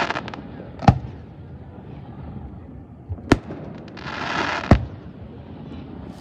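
Aerial fireworks shells bursting in sharp booms: one about a second in, one past three seconds, and one near five seconds. A hissing crackle leads into the last boom, and a brief crackle comes at the very start.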